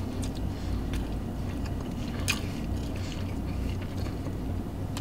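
A person chewing a mouthful of bacon, egg and cheese sandwich, over a steady low hum, with one short click a little over two seconds in.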